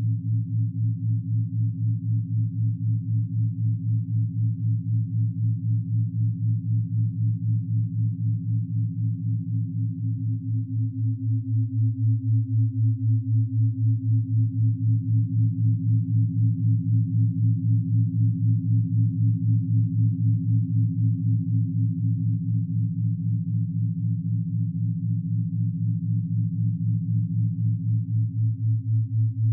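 Layered low synthesized sine tones held steady, pulsing evenly in loudness, as in a pineal-gland 'third eye' brainwave-entrainment meditation track. The middle tone fades out briefly about eleven seconds in and returns, then thins again near the end.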